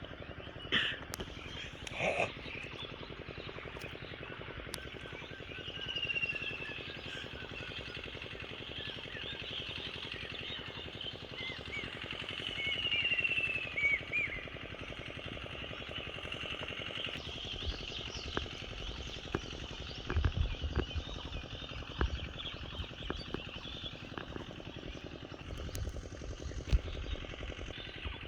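Outdoor ambience with small birds chirping over a steady background hiss. In the second half there are scattered low knocks and thumps.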